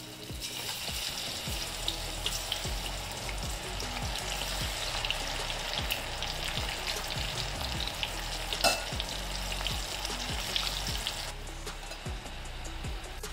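Masala-coated chickpeas deep-frying in hot oil on a medium-high flame: a dense, steady sizzle and crackle that starts as they slide into the oil, with one sharp louder pop about two-thirds of the way through.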